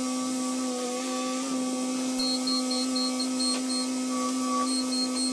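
Bobcat T66 compact track loader running steadily with a held engine-and-hydraulic whine that dips slightly in pitch now and then. From about two seconds in, a rapid high-pitched beeping joins it, several beeps a second.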